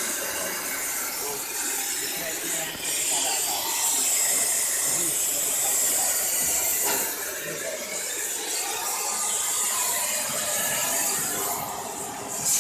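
Oxy-fuel cutting torch hissing steadily as it cuts through steel on a railway coach bogie, dipping briefly just before the end.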